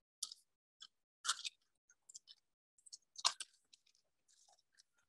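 Faint, irregular clicks and scuffs, about a dozen in a few seconds, with two slightly louder ones about a second and three seconds in.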